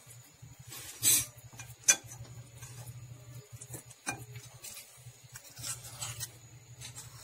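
Metal spoons scraping and clinking against dishes while the tofu-and-flour batter is scooped and shaped for frying. There is a brief loud scrape just after a second in and a sharp clink about two seconds in, over a steady low hum.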